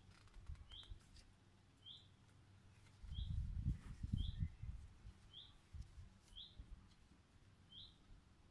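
A bird repeating a short, high chirp about once a second. A low rumble rises for about a second and a half around three seconds in.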